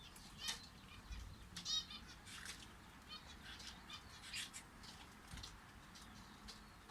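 Canaries chirping in short, scattered high calls, with a couple of soft low thumps about a second in and again past the five-second mark.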